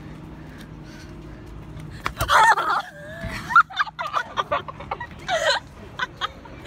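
High-pitched wavering vocal sounds, squeals or shrieking laughter, in two loud outbursts about two and five seconds in, with short sharp noises between, over a low steady hum.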